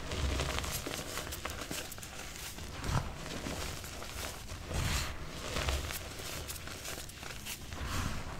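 Hands squeezing and crushing soft clumps of reformed gym chalk, a continuous crumbly crunching with a few soft thumps as the palms press into the powder.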